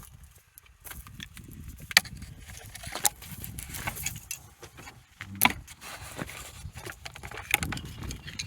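Irregular metallic clinks and knocks of hardware and tools being worked while a sawmill carriage's drive cable is tightened, with sharper knocks about two and five and a half seconds in, over a low rumble.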